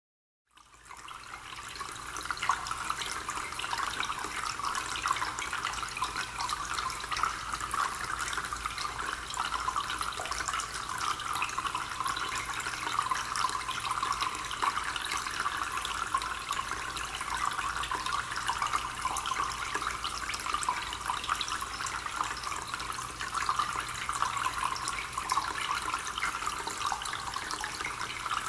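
Water from a three-tiered floor fountain's twelve streams trickling and splashing steadily into its bowls, fading in within the first second.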